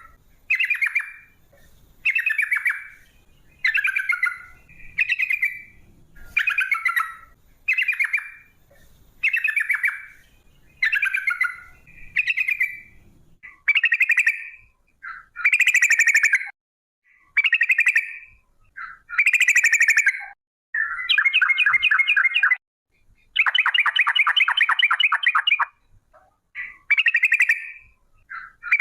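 Yellow-vented bulbul (trucukan) singing vigorously: short bubbling phrases about once a second, then longer, fast trilled phrases in the second half, the longest lasting a couple of seconds.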